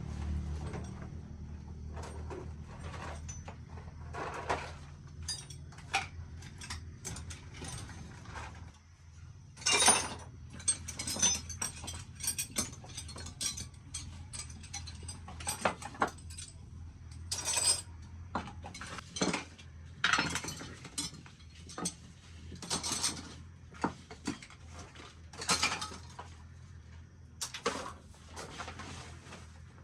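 Hand tools clicking, clinking and ratcheting on metal machine parts in irregular bursts, over a steady low engine hum that dips briefly about nine seconds in.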